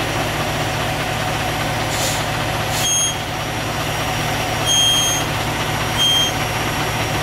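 Heavy diesel engine idling steadily, with two short hisses of air about two and three seconds in as the coach's air parking brake is released. Three high electronic beeps follow, the middle one longer.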